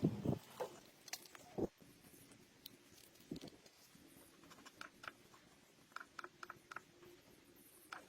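Scattered small clicks and taps from handling phone parts and small tools. A few sharper clicks come in the first second and a half, one more about three seconds in, and a quick run of faint ticks about six seconds in.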